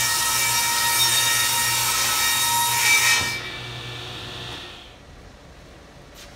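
Craftsman table saw cutting through plywood with a steady whining hiss; the cut ends suddenly about three seconds in, and the saw's hum runs on more quietly and dies away over the next second and a half.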